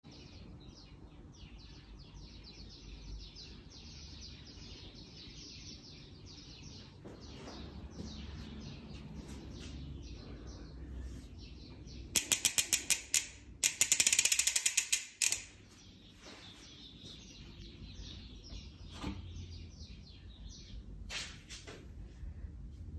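Carbon-Ti X-Hub SP rear hub freewheeling, its 4 pawls ticking over a 56-tooth titanium ratchet ring in a fast clicking buzz. Faint for the first half, then very loud for about three seconds around the middle: a quick run of sharp clicks, then a dense buzz. After that it drops back to faint ticking.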